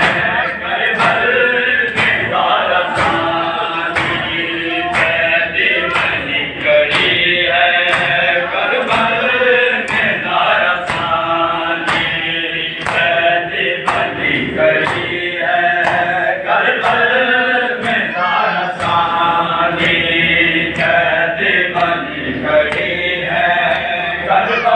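Men's voices chanting a noha in unison, with sharp rhythmic strikes about one and a half per second, typical of matam chest-beating keeping time.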